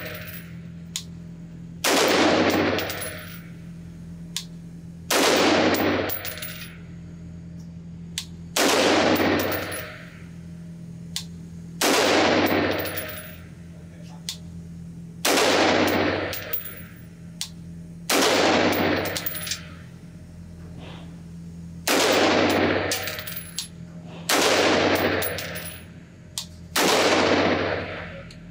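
Sig Sauer MCX-Spear LT 5.56 pistol with an 11.5-inch barrel firing slow, aimed single shots: nine shots about three seconds apart. Each shot has a long echoing tail off the walls of an indoor range.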